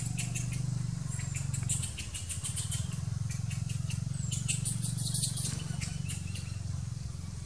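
A steady low mechanical hum, as of a running motor, under two bursts of rapid high clicking mixed with short chirps: one in the first two seconds and one about four and a half seconds in.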